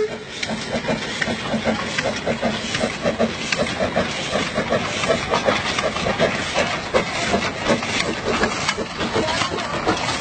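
Narrow-gauge steam locomotive working as it hauls its train, its exhaust beating in a quick, even rhythm.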